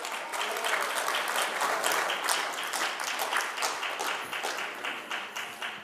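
Audience applauding, many hands clapping at once, tailing off near the end.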